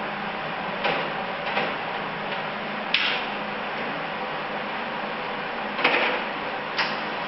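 Five short knocks and clatters from sheet metal and tools being handled during bodywork, over a steady background hum.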